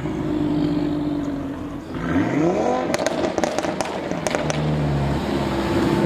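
Performance car engine revving up with a rising note, followed by a quick run of sharp exhaust pops and crackles, then settling back to a steady engine note.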